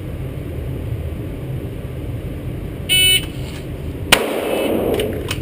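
A shot timer beeps once, and about a second later a Glock 17C 9mm pistol fires from a fast draw, the shot echoing, with fainter sharp sounds just after.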